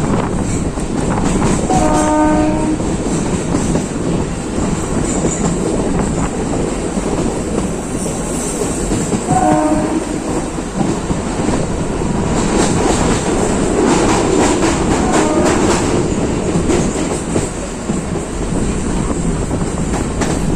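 Electric suburban train running on the line with steady rumble and rail clatter, the clatter thickest in the middle stretch. Its horn gives a short blast about two seconds in and a shorter one near ten seconds.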